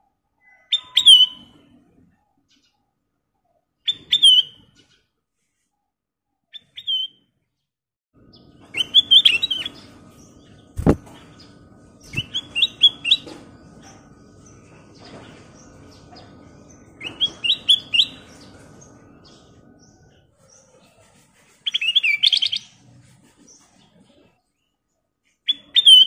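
Ruby-throated bulbul (kutilang emas) singing about eight short bursts of bright, quick falling notes, spaced a few seconds apart. A sharp knock comes about eleven seconds in, and a low rumble sits in the background through the middle stretch.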